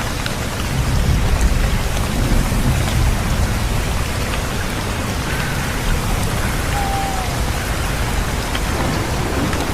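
Steady heavy rain falling, with a low rumble underneath that swells about a second in.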